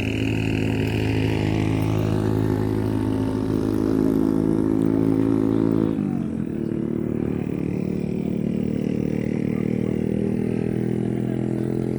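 Motorcycle engine running steadily, its note changing about halfway through.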